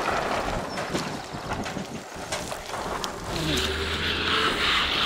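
Hose water splashing and trickling over an elephant's hide, then from about three seconds in a hand scrubbing the wet, wrinkled skin with a steady rubbing sound. A brief low hum is heard under the rubbing near four seconds.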